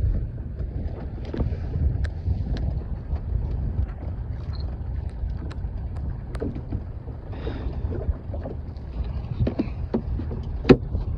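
Wind buffeting the microphone over the steady low rumble of a fishing boat on open water, with scattered knocks as a plastic cooler lid is handled; the sharpest knock comes near the end.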